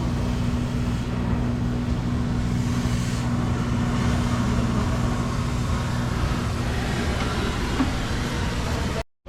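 Mini excavator's diesel engine running steadily at a constant speed.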